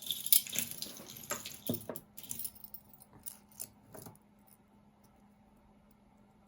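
Costume jewelry jingling and clinking as hands rummage through a box of it: a busy run of clinks for the first couple of seconds, then a few scattered clicks that die away after about four seconds.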